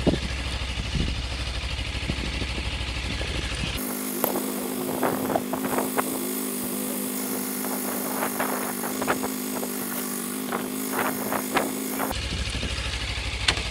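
Motorcycle engine idling at a standstill, a steady low rumble. From about four seconds in until near the end the low rumble abruptly drops out, leaving a steady hum and hiss with scattered clicks and knocks.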